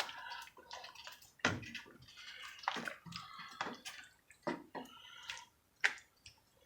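Seafood-boil broth with sausages in a pot, bubbling and splashing: irregular short pops and drips every half second or so.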